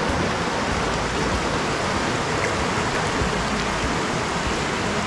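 Fast water rushing over bare rock at the head of a waterfall: a steady, even rush of white water.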